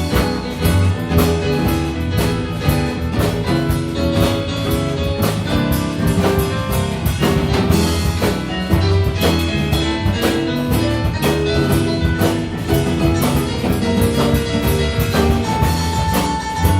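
An instrumental ensemble playing music with a drum kit keeping a steady beat under pitched melodic instruments.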